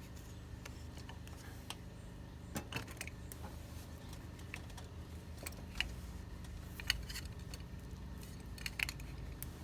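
Scattered light metallic clicks and taps from hands handling car battery terminal hardware and connectors, a few seconds apart, over a steady low hum.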